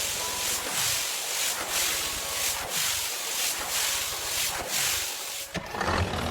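Steady hiss of falling rain, swelling and easing every second or so. A lower, fuller sound joins near the end.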